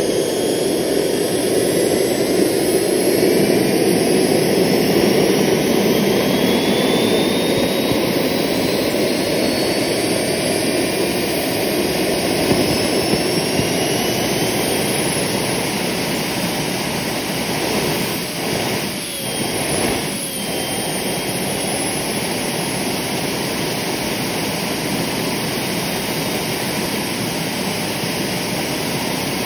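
KJ66 model turbojet running on its first start, a steady rush of jet noise with a high turbine whine. The whine climbs in pitch over the first half as the engine spools up. About two-thirds in it briefly dips and wavers, then runs steady.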